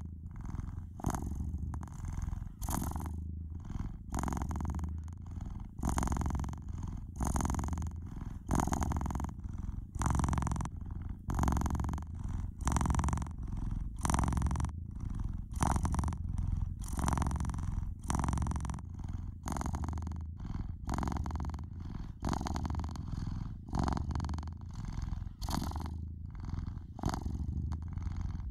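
A domestic cat purring continuously: a low rumble that swells and fades in an even, repeating rhythm with its breaths in and out.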